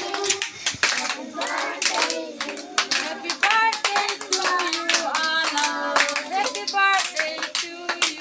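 A group of children singing together while clapping their hands in a quick, uneven patter.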